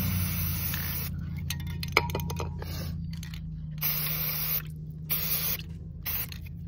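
Aerosol can of Rust-Oleum metallic spray paint hissing in several short bursts as paint is sprayed onto water in a bucket. A steady low hum runs underneath, with a few sharp clicks about two seconds in.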